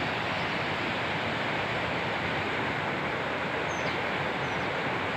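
Steady rush of fast-flowing mountain stream water, with two faint short high chirps near the end.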